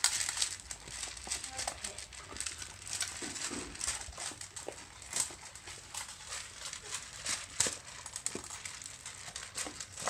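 Several puppies eating dry kibble from a shallow pan: a steady, irregular run of crunching and small clicks as the pieces are chewed and knocked against the pan.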